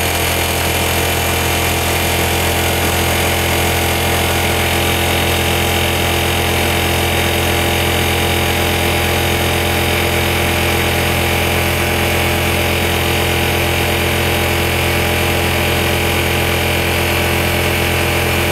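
Bostitch 6-gallon air compressor running steadily, its motor and pump filling the tank under load and drawing about 10.4 amps.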